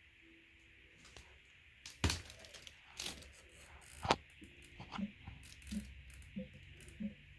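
Three sharp cracks about two, three and four seconds in, the loudest sounds here. From about five seconds on, an S-shaped bubbler airlock on a fermenting beer gives short, evenly spaced plops, about one every two-thirds of a second, as carbon dioxide pushes through it: the sign of a vigorous fermentation.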